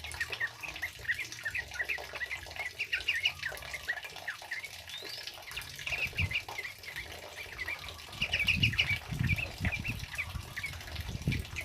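Yellow-vented bulbuls (trucukan) chattering in quick runs of short, sharp notes, over the steady hiss of heavy rain. A few low thumps come in the second half.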